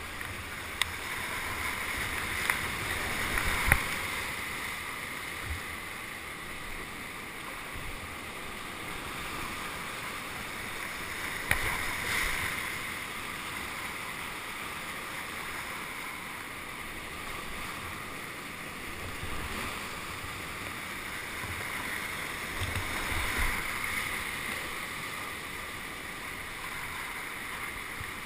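Rushing whitewater: a steady wash of churning river water with a few sharp knocks and low thumps, the strongest about four seconds in and again near the middle.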